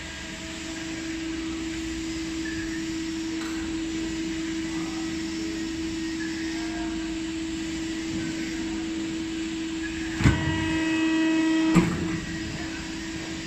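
Foam punching press running with a steady hum while its cutting-die height is set. About ten seconds in, a sharp knock starts a higher whine for about a second and a half, which ends in a louder knock as the machine moves and stops.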